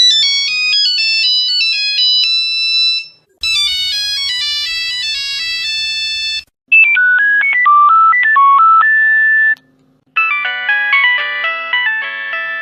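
Nokia mobile phone ringtones played one after another, four short versions of about three seconds each with brief gaps between them. The third is a simpler single-note melody with a steady low hum under it; the others are fuller chiming tunes.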